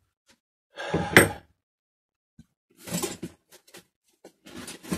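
Metal hand tools clattering and clinking in three short bursts, with a sharp clink about a second in, as tools are handled and rummaged through.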